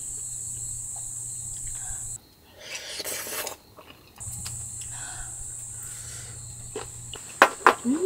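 Crickets chirping in a steady high chorus, broken off for about two seconds in the middle, where a short rustling hiss sounds instead. Near the end, a few sharp clicks of utensils against dishes.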